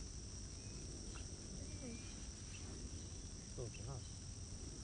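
Insects chirring in a steady, unbroken high-pitched drone over a low rumble, with faint distant voices about three and a half seconds in.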